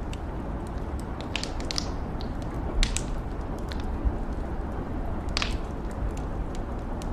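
Wood fire in a fireplace crackling, with irregular sharp pops, the loudest about three seconds in and again a little past five seconds, over a steady hiss of rain.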